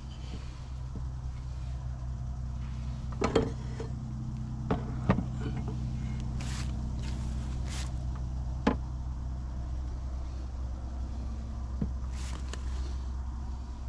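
Sharp metallic clinks and knocks of hand tools and parts during work on an outboard motor's lower unit, a handful of separate strikes, with a few short hissing sounds, over a steady low hum.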